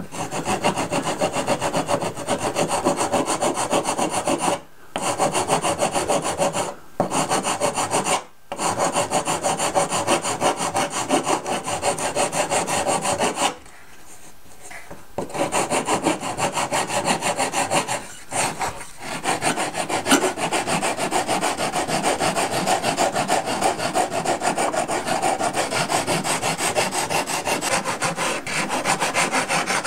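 Sanding block rasping back and forth along the wooden stringers of a model boat hull, shaping them to the bulkhead profile. Rapid, continuous strokes, with a few brief pauses and a longer one about halfway through.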